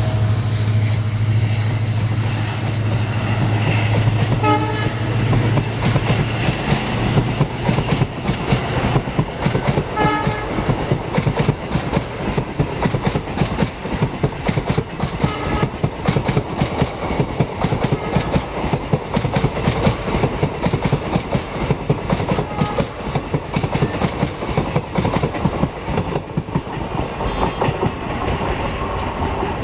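WDP-4 diesel locomotive, an EMD two-stroke, passing close with a low engine drone for the first several seconds. Short horn toots come about four and a half seconds in and again about ten seconds in. The coaches then run past, their wheels clattering rapidly over the rail joints, easing off near the end.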